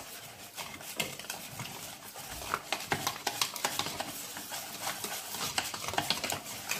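A utensil stirring a cornmeal and soya milk batter in a bowl, with quick irregular clicks and scrapes against the bowl.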